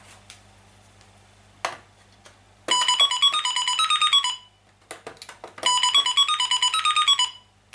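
A toy cash register's short electronic jingle, a beepy stepping tune from its small speaker, plays twice as its card-scanner switch is worked with a scalpel blade. Sharp clicks of the blade on the switch come before and between the two tunes.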